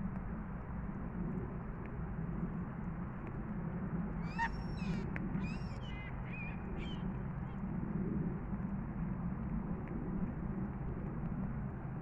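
Water birds on a park pond calling: a handful of short calls in quick succession from about four to seven seconds in, over a steady low rumble.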